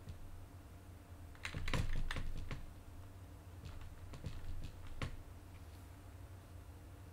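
Computer keyboard keys clicking: a quick run of keystrokes about a second and a half in, then a few single clicks.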